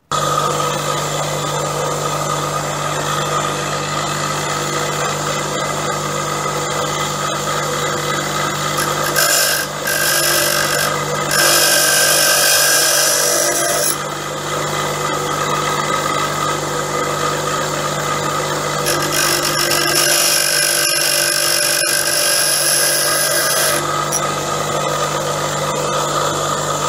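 Bench grinder running with a steady motor hum while a dull drill bit is sharpened on the grinding wheel; the hiss of the steel against the stone gets louder in two longer passes, about a third of the way in and again past the middle.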